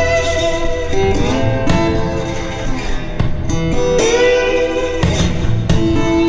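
Instrumental intro music: held notes, some sliding in pitch, over a steady bass.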